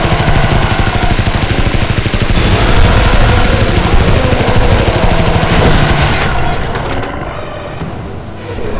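Sustained rapid machine-gun fire with booms, loud and continuous, dying away after about six seconds.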